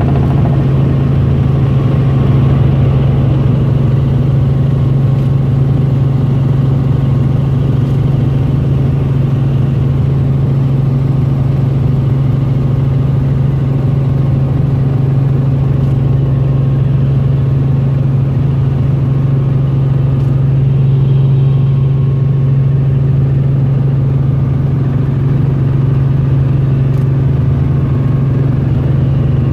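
Helicopter in flight: a loud, steady engine and rotor drone with a strong deep hum.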